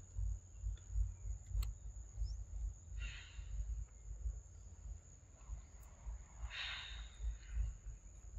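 Forest ambience: a steady high-pitched insect drone over a fluctuating low rumble, with two brief hissy sounds, about three seconds in and about six and a half seconds in.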